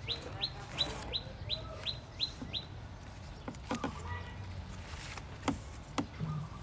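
A bird calling a quick, even series of short rising chirps, about three a second, that stops about two and a half seconds in; a few sharp clicks follow later.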